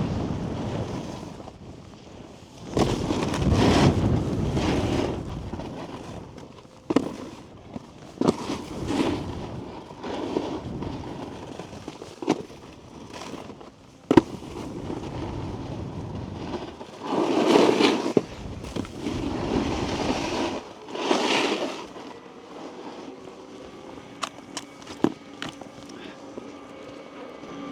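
Snowboard riding over packed snow: the base and edges scrape and hiss in several loud bursts, with sharp knocks of the board landing or striking something between them.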